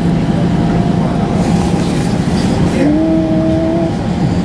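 Cabin ride noise of a 2008 ElDorado National E-Z Rider II MAX CNG bus under way: the steady drone of its Cummins Westport B Gas Plus natural-gas engine over road noise. A brief whine rises in just before three seconds, holds for about a second, then falls away.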